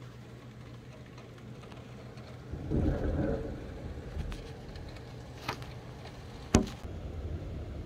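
Thunder rumbling low about three seconds in, over a steady low background hum. Later two sharp clicks, the second the loudest sound.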